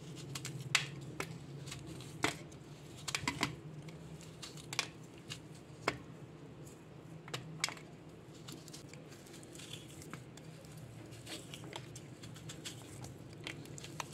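Blocks of jaggery being broken up by hand over a stainless steel plate: irregular sharp cracks and crumbling, with small pieces dropping onto the steel.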